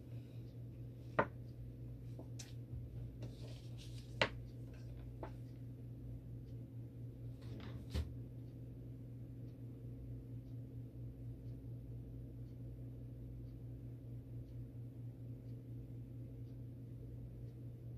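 A few sharp clicks and taps of small metal tools and parts being handled at a workbench, the loudest about a second in, about four seconds in and about eight seconds in, with fainter ticks between, over a steady low hum.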